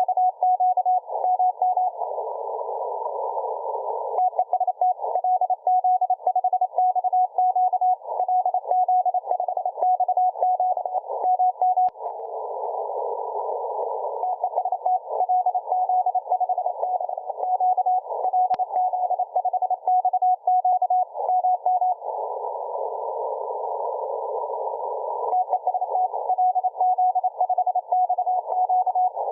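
Morse code (CW) signal received on a software-defined radio: a single steady beep keyed on and off in fast dots and dashes. Three times, about two, twelve and twenty-two seconds in, the sending pauses for roughly two seconds and only the hiss of band noise is heard.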